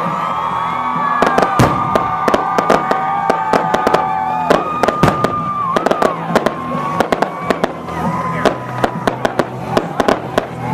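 Fireworks display: shrill whistling shells hold steady tones for the first four seconds or so while sharp bangs and crackling pops go off, the pops coming thicker in the second half.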